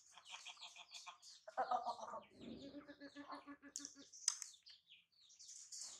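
Chickens clucking, with a drawn-out lower call from about one and a half to four seconds in, over a run of high, short chirps.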